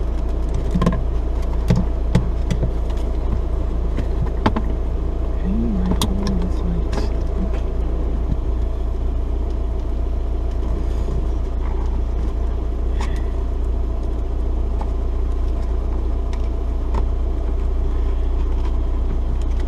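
A steady low hum runs throughout. Scattered short clicks and light knocks come in the first several seconds, then stop.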